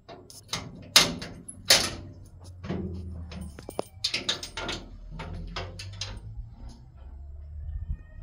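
Metal door being unlocked and opened: a series of sharp metallic clicks and clanks from the lock and latch, the two loudest about a second and a second and a half in, then a quick run of rattles around four seconds in, and a few more clicks as the door swings open near the end.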